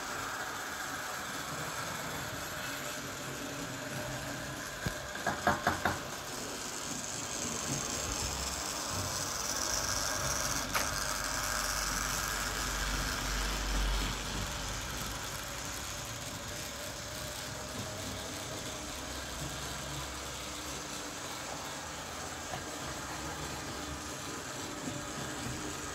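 Model trains running on the track: a steady electric-motor whir with wheel rumble and rattle. There is a quick run of about five clicks about five seconds in and a single click a few seconds later.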